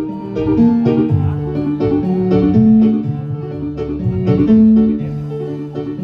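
Dangdut music played through a PA sound system: plucked guitar notes over a bass line that repeats about every two seconds.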